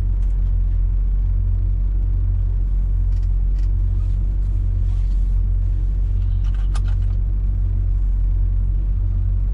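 A lorry's diesel engine running with a steady low rumble, heard from the cab, with a few faint clicks about three and seven seconds in.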